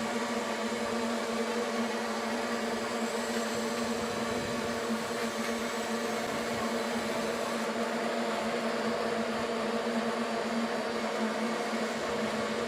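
Heavy road-construction machinery running steadily: a constant engine hum with a fixed drone, no revving or changes.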